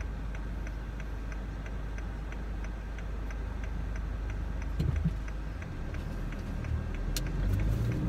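Van engine idling with the turn-signal indicator ticking steadily, about two ticks a second. There is a short thump about five seconds in, and near the end the engine sound rises as the van pulls away.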